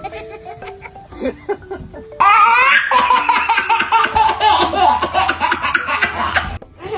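A baby laughing hard in repeated belly laughs over a background music track. The laughter bursts in about two seconds in, is the loudest sound, and cuts off abruptly near the end.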